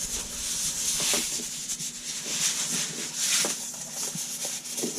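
Packaging rubbing and rustling as an LED light bar is unwrapped and handled, swelling and fading several times, with a few light ticks.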